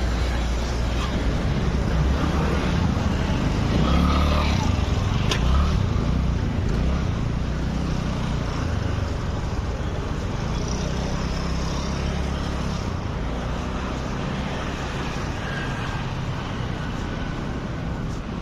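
Steady vehicle noise, heaviest in the low end, continuing without a break.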